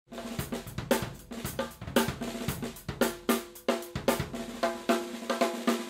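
Drum kit playing a busy groove, with snare, cymbal and tom hits coming a few times a second.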